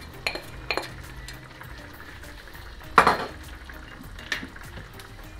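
Slotted spatula scraping green beans off a ceramic plate into a frying pan, with light clinks of utensil on crockery. A single sharp clatter of kitchenware about three seconds in is the loudest sound, and a fainter knock follows a little over a second later.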